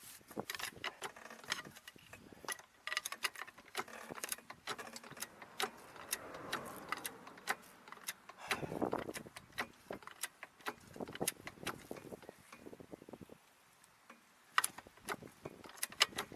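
Car jack being worked to raise the car, with many irregular metallic clicks and clanks.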